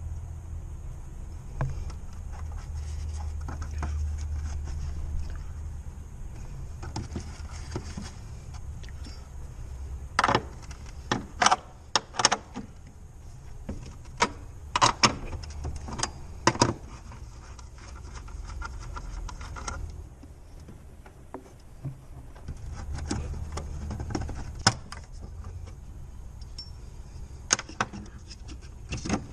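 Metal clinks and taps of a 10 mm socket wrench on the tail light's mounting nuts, in scattered sharp clicks that cluster about a third of the way in and again near the end, over a low handling rumble.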